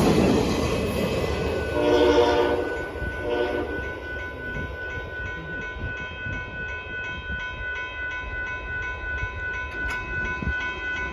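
Union Pacific work train passing, its rumble fading, with the locomotive horn sounding one blast about two seconds in and a shorter one just after. Then a grade-crossing bell rings steadily, about three strikes a second.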